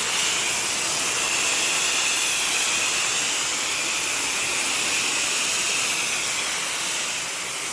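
Pressure washer spraying a steady hiss of high-pressure water.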